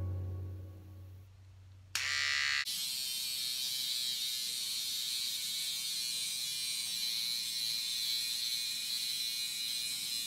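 Electric hair clipper starts about two seconds in and runs with a steady buzz and a high whine as it is worked through thick curly hair.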